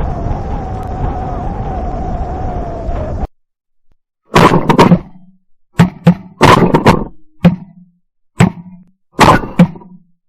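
A steady drone with a slightly wavering hum cuts off suddenly about three seconds in. After a second of silence comes a run of about eight sharp, ringing knocks spread over five seconds, some in quick pairs.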